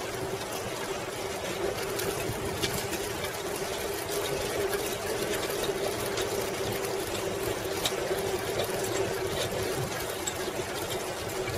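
1995 Schwinn Classic Cruiser bicycle rolling along a paved path: steady road noise and mechanical whir with a constant hum and a few faint ticks.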